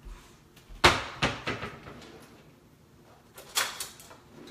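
Kitchen cupboard doors and drawers opened and shut: a few sharp knocks and clunks, the loudest about a second in, then a quick cluster of clatters about three and a half seconds in.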